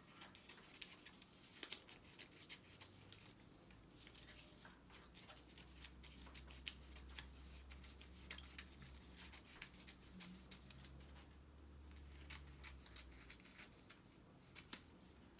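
Small scissors snipping a paper strip lengthwise down its middle: a faint, uneven run of short snips with light paper rustling.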